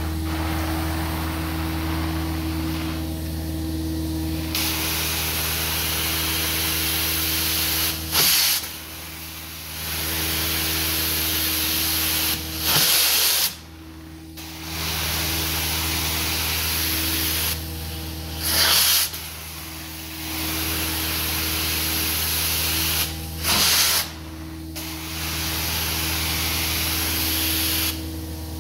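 Carpet extraction cleaner running with a steady low motor hum, its wand hissing with spray and suction in long strokes. The strokes break off about every five seconds, each break opening with a short louder rush.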